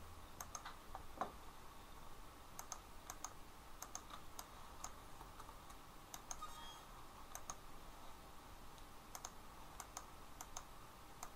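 Faint, irregularly spaced clicks of a computer keyboard and mouse over a low steady hum.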